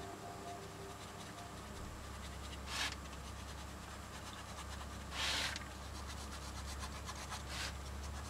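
Scratchy rubbing strokes on a sketchbook page as a wax-crayon drawing is worked over by hand: a brief one about three seconds in, a longer one about five seconds in, and a fainter one near the end, over a faint low hum.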